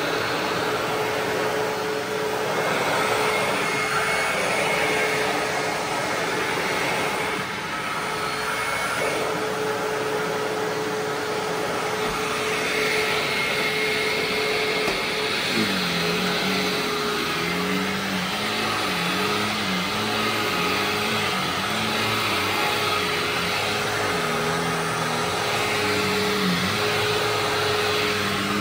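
Hoover WindTunnel Ultra Self-Propelled upright vacuum cleaner, a 12-amp model, running steadily with a constant whine. From about halfway its lower tone rises and falls again and again. Its belt is worn and, in the owner's words, will need replacing.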